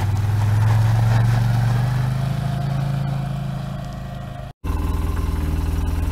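Side-by-side UTV engine running as the vehicle pulls away, louder at first and then fading as it moves off. After a sudden cut, a UTV engine idles steadily close by.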